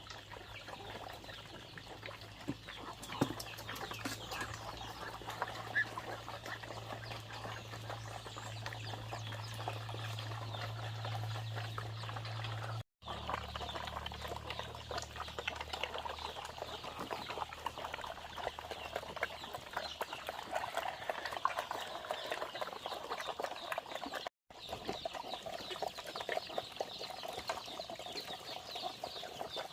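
A flock of chickens clucking and calling, many short calls overlapping, with a low steady hum beneath them for the first half.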